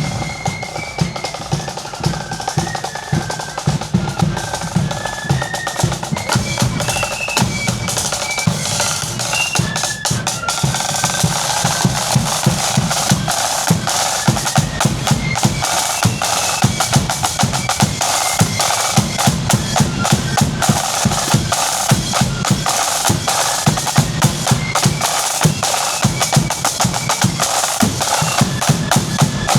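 Marching flute band playing a tune on flutes over rapid snare drum rolls and bass drum beats.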